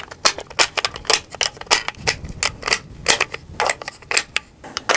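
Cartridges pressed one by one into a rifle magazine: a quick, irregular series of sharp metallic clicks, about three or four a second, as the empty magazine is topped off.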